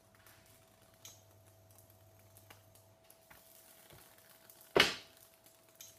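Light clicks and a sharp clack of kitchen utensils and the frying pan as pancakes are turned, the clack about five seconds in; a faint steady hum underneath.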